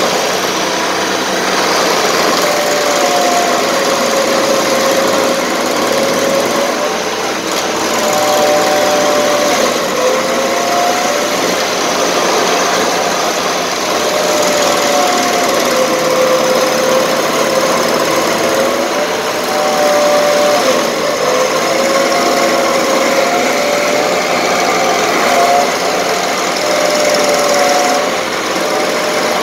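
Stump grinder running, its toothed cutter wheel chewing into a tree stump and throwing wood chips, a loud continuous grinding over the engine. The engine note sags and recovers several times as the wheel bites into the wood.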